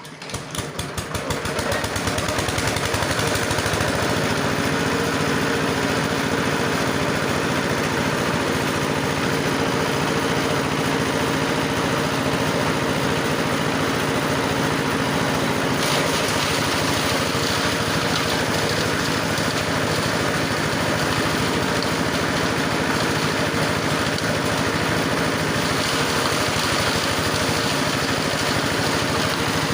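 Grass chopper machine starting up, spinning up over about two seconds and then running at a steady speed. Its higher hiss grows louder about halfway through and again a few seconds before the end.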